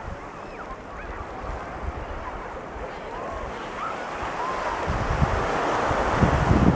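Ocean surf on a sandy beach, with waves washing in. The rush swells louder over the last couple of seconds, with wind buffeting the microphone.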